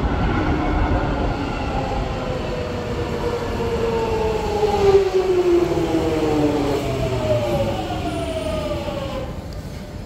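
Jubilee line 1996 Stock tube train braking into the platform over a low rumble, its traction motors whining in several tones that fall steadily in pitch. The whine fades out about nine and a half seconds in as the train comes to a stop.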